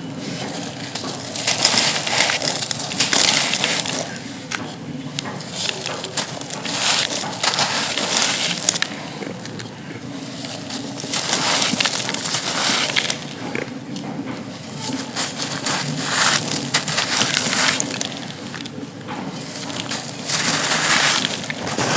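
Dry, dusty claypot material being crushed and crumbled, in repeated bouts of gritty crunching a few seconds long with short lulls between.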